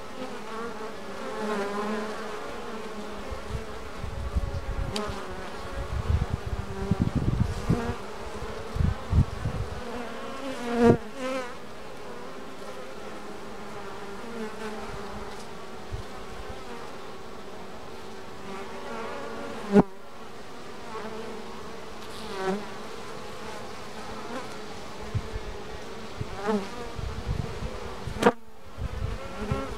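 Honeybees buzzing at a hive entrance during a nectar flow: a steady hum of busy forager traffic, with single bees flying close past and their pitch wavering. Two sharp clicks stand out, about 11 and 20 seconds in.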